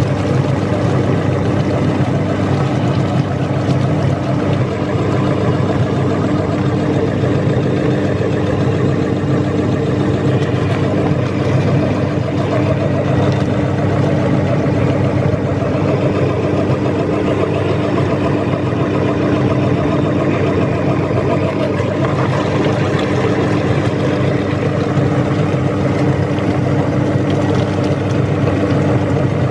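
Electric meat grinder's motor running steadily with a constant hum while it grinds oranges into pulp.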